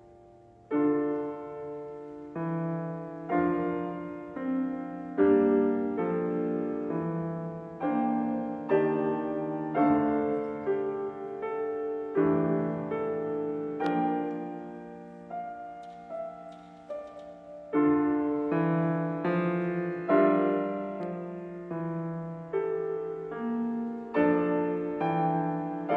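Yamaha grand piano played solo. The sound of a previous chord is dying away at the start; from just under a second in, chords are struck about once a second, each ringing and fading before the next.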